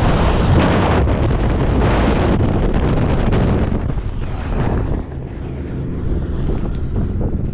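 Wind and slipstream rushing over the microphone of a static-line paratrooper falling away from a C-47, the noise easing off about five seconds in as the parachute opens and the fall slows.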